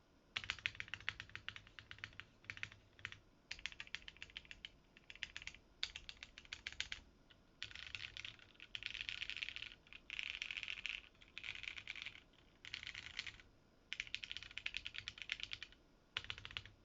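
Typing on a Maker Velvet TKL custom mechanical keyboard, a plateless build with lubed and filmed Ultraglide MX Black linear switches, TX stabilisers and GMK keycaps. The typing comes in bursts of rapid keystrokes with short pauses between them, and the keystrokes blur into fast continuous typing from about 8 to 11 seconds in.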